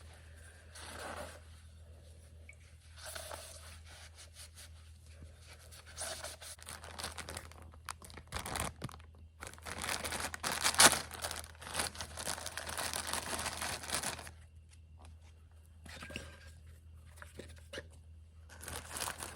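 Paper towel rubbing and crumpling as an oil burner's filter canister is wiped dry, in bouts of rustling that are heaviest from about six to fourteen seconds in.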